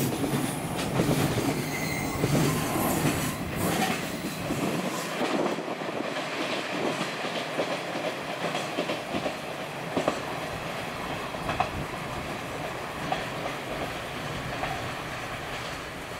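Container freight wagons rolling past with their wheels clattering over the rail joints, then the tail of the train going away, the rumble fading steadily with a few sharp clicks from the wheels near the end.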